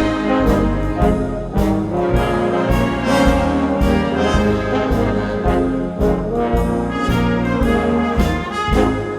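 Wind band playing an instrumental passage, brass to the fore with trombones and trumpets, over a steady beat of percussion hits.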